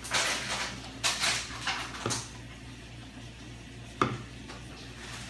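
Plastic squeeze bottle of paint spurting and hissing in several short bursts as it is squeezed out, then a sharp knock about four seconds in as a plastic bottle is set down on a wooden table.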